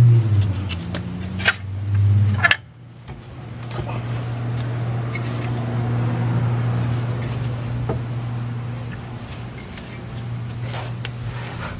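Light metallic clicks and knocks as a VW Beetle's front steering knuckle is swung outward and the CV axle's splined end slides out of the wheel hub. There are a few sharp clicks in the first couple of seconds and two more near the end, over a steady low hum.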